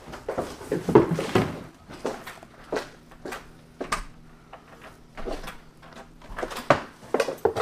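Irregular knocks, clicks and clatter of people moving through a cluttered garage: footsteps and objects bumped or handled, loudest about a second in and again near the end. A faint steady hum runs underneath.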